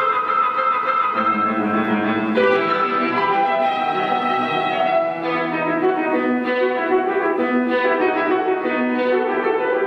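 Background instrumental classical music, a violin melody of slow held notes over a lower accompaniment.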